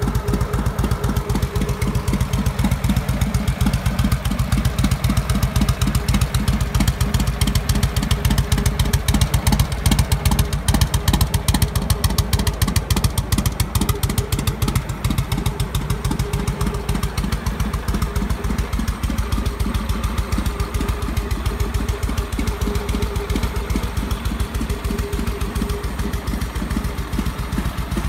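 1949 Harley-Davidson EL's Pan-Shovel V-twin engine running at a steady idle with an even, rapid beat, picking up a little for a few seconds near the middle.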